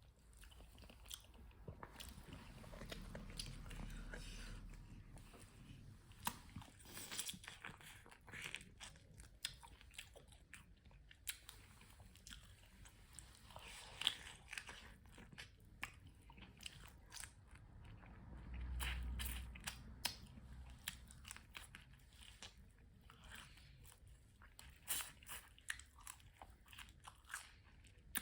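Faint, irregular crunching, cracking and chewing as someone bites into and eats cooked baby crabs, shells breaking between the teeth.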